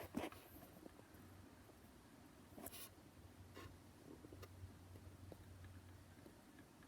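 Near silence: faint room tone with a low hum and a few soft clicks or rustles.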